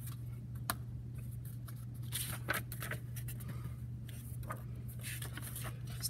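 Hardcover picture book being opened and its pages handled: a few short paper rustles and light clicks over a steady low hum.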